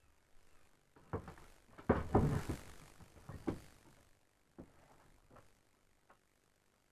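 Wooden chest of drawers being rummaged through at an open bottom drawer: a run of knocks and thuds, the loudest cluster about two seconds in with a brief sliding rush, then a few fainter knocks.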